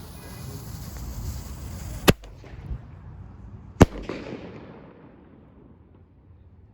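Small consumer firework with a salute: a hiss as it burns, then two sharp bangs about two seconds and nearly four seconds in, the second the louder, with a short fading tail after it.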